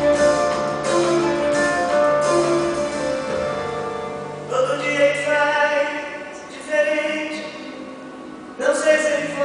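A woman singing a slow Brazilian popular song live with instrumental accompaniment. A phrase ends on a held note with vibrato about halfway through, and a new phrase begins near the end.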